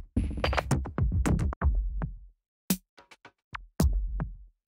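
Electronic drum-machine loops from a cinematic sample pack previewed one after another: punchy beats with deep bass, each cutting off abruptly, with short silent gaps between them.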